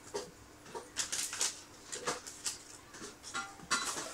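Small plastic toy parts and packaging being handled: a series of short crinkles and clicks, busiest about a second in and again near the end.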